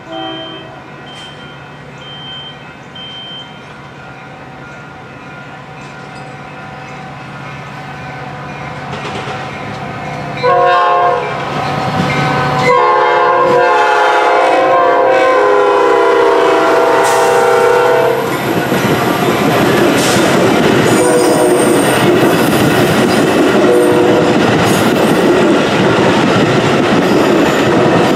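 Metra commuter train's locomotive horn sounding for a grade crossing, first a short blast about ten seconds in, then a long blast. The crossing bell rings faintly before the horn. From about two-thirds of the way in, the train runs through the crossing with steady wheel rumble and clatter.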